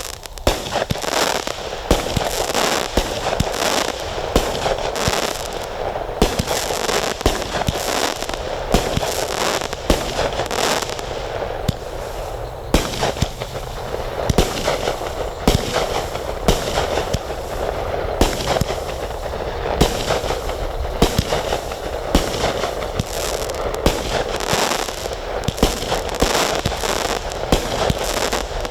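Consumer 192-shot fireworks cake firing a rapid, unbroken barrage of shots and bursts, many per second.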